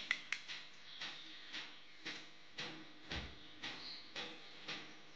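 Faint, regular ticking, about two ticks a second, with one duller knock about three seconds in.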